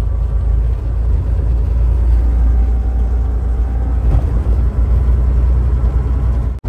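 Steady deep rumble of a semi truck's engine and road noise heard inside the cab while driving. It cuts out briefly near the end.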